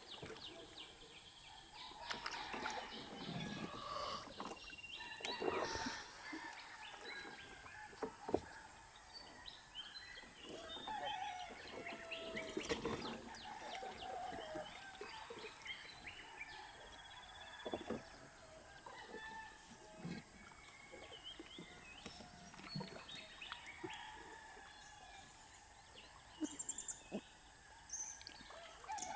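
Birds calling with many short chirps and calls, over faint outdoor background noise, with a few scattered knocks.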